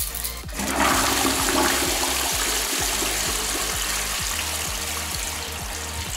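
A toilet flushing into a bowl packed with sweet straws: a loud rush of water starts under a second in and slowly eases off. Electronic dance music with a steady beat plays underneath.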